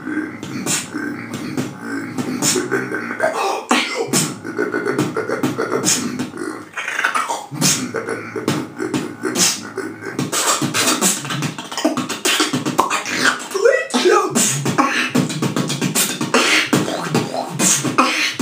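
One man beatboxing: a fast, dense run of mouth-made drum hits over a continuous low voiced sound, with a few sliding pitch sweeps. It is his way of expressing anger through beatbox.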